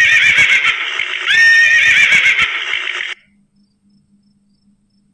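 Horse neighing: two long whinnies, each rising sharply and then wavering, the second beginning a little over a second in. The call stops about three seconds in.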